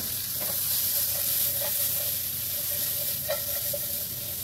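Mushrooms, red cabbage and onions sizzling steadily in bacon fat in a frying pan on high heat, stirred with a rubber spatula that knocks against the pan a few times.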